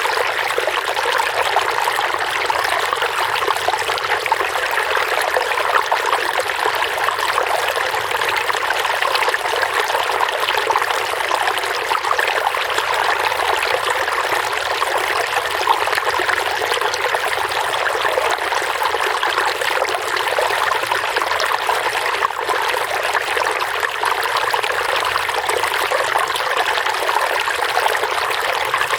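Running water trickling and splashing steadily, an even babble with no pauses or changes.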